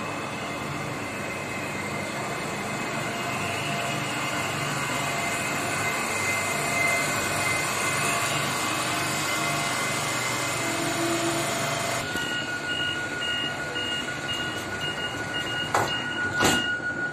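Renfe Civia commuter electric train standing at the platform, its on-board equipment giving a steady hum with a faint whine. About twelve seconds in, the sound changes to inside the car: the door-closing warning beeps about twice a second, then the doors shut with two knocks, the second one loud, as the train prepares to depart.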